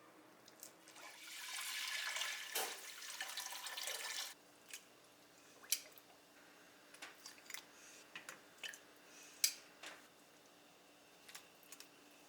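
Water running, as from a kitchen tap or poured into a pot, for about three seconds, then stopping abruptly. Scattered light clicks and knocks follow.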